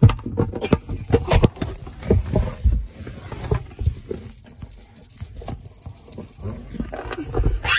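Handling noise from a phone being moved about close to its microphone: rustling, rubbing and irregular bumps and thumps, with a louder scrape near the end.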